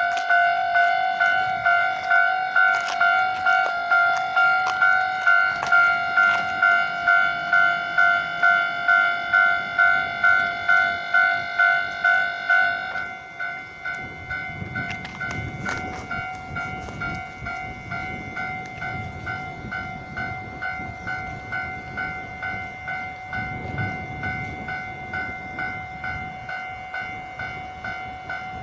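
Japanese level-crossing alarm ringing its electronic two-tone "kan-kan" at about two strokes a second. About 13 seconds in, the alarm drops in loudness and a train passes, with low rumbling wheel noise swelling and fading under the continuing alarm.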